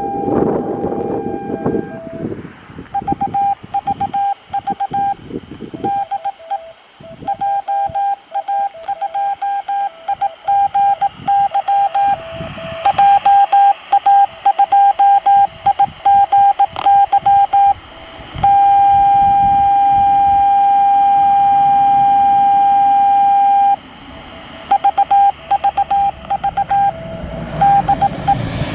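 2.4 GHz amateur radio beacon heard through a transceiver's speaker: a single steady tone keyed on and off in Morse-code dots and dashes. Partway through it holds one long unbroken tone for about five seconds, then the keying resumes.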